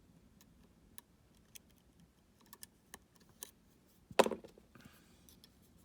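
Lock picking in a U-Shin Showa NX pin-tumbler lock: scattered faint clicks from the pick working the pins, then one much louder knock about four seconds in.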